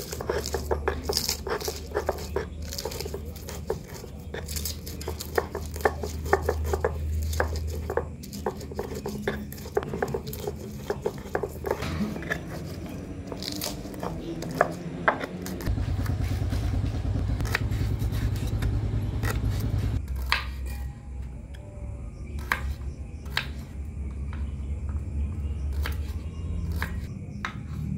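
Stone pestle crushing and grinding fresh chilies in a black stone mortar (Indonesian cobek and ulekan): rapid sharp knocks and gritty scraping of stone on stone. About 20 s in this gives way to a knife cutting shallots on a wooden board, a few sharp taps spaced apart. A steady low hum runs underneath.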